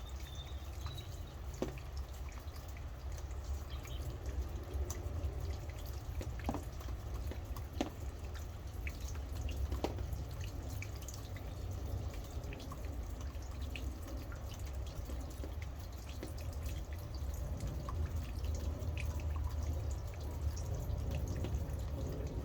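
Rain falling, with scattered close drops dripping irregularly over a steady low rumble.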